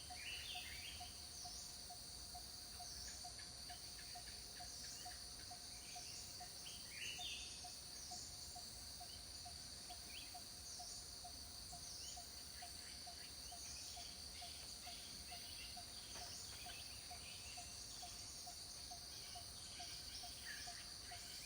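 Forest ambience: a steady high insect drone, a low chirp repeating about three times a second, and scattered short bird calls.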